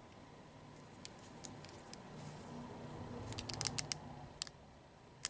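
Small plastic clicks and light creaks from a hand-held plastic action figure being turned and its limbs and joints moved, with a quick run of clicks about three to four seconds in.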